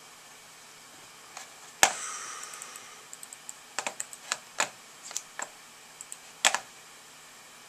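Computer keyboard and mouse clicking: one loud click with a short ringing tail about two seconds in, then an irregular run of key taps.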